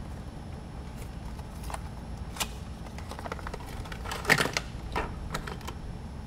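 Scattered light clicks and taps, with a brief louder clatter a little over four seconds in, over a steady low hum.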